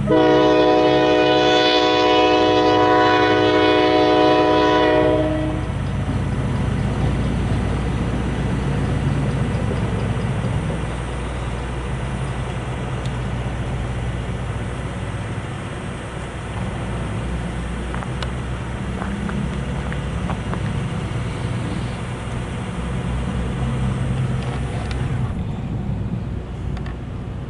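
Diesel locomotive air horn sounding one long blast of several tones at once, for about five seconds, then the locomotive's engine rumbling and its cars rolling over the rails, with a few sharp clicks about two-thirds of the way through.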